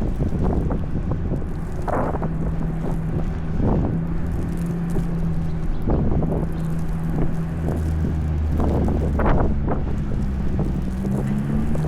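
Wind from a snowstorm rumbling on the microphone, swelling in several gusts, over a steady low engine hum from traffic.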